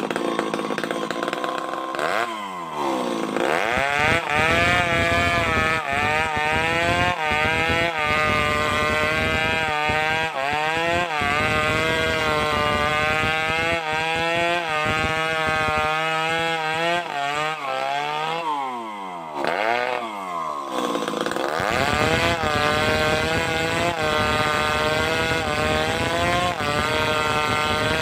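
Two-stroke chainsaw running at high revs while cutting, its pitch wavering under load. About two seconds in, and again for a couple of seconds past two-thirds of the way through, the engine drops off and revs back up.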